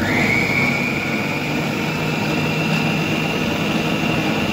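Electric food processor switched on abruptly and running steadily, its motor whine rising slightly in pitch as the blade grinds a thick mixture of cooked chicken and split lentils.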